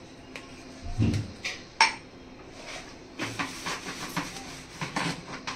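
Small kitchen knife cutting through a steamed dhokla and clicking and scraping against the steel plate beneath it: a dull knock about a second in, a sharp click shortly after, then a run of quick taps and scrapes in the second half.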